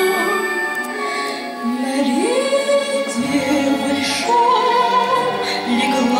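A woman singing solo into a microphone, holding long notes and sliding up to a higher note about two seconds in and again about four seconds in.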